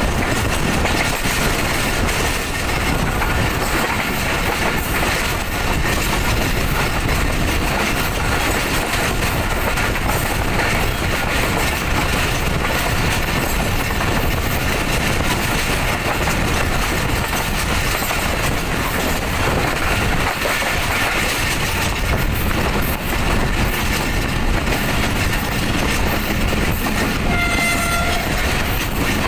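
Pakistan Railways passenger coach running at speed, a steady loud rumble of wheels on the rails and rushing air heard from the open coach door. A short high-pitched tone sounds briefly near the end.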